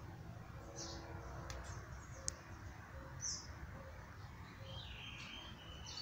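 Scattered short, high bird chirps over a faint low background rumble. A thin, steady high note comes in near the end.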